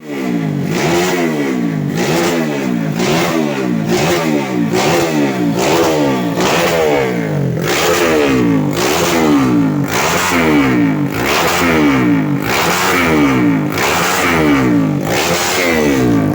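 Honda Blade underbone motorcycle's single-cylinder four-stroke engine being revved up and down about once a second while warming up.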